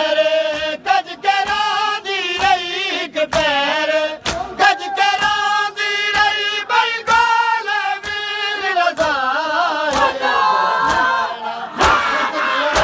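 Male voices singing a Punjabi noha (Shia mourning chant), crossed by the sharp slaps of hands beating on bare chests (matam), roughly once a second.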